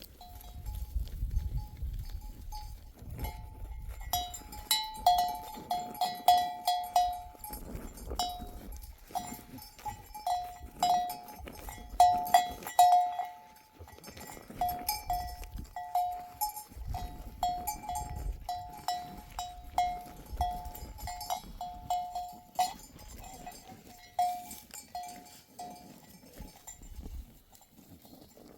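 Small metal bells on a flock of sheep clanking irregularly, several strikes a second, as the animals move about.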